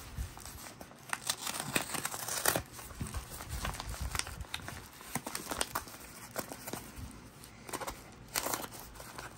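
Yellow padded paper mailer envelope being handled and slit open with a small blade: irregular crinkling and tearing rustles, with a few louder ones partway through and near the end.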